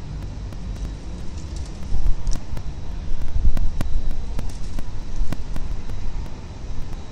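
Outdoor low rumble of wind and city traffic on a nest-camera microphone, gusting louder in the middle, with scattered sharp clicks.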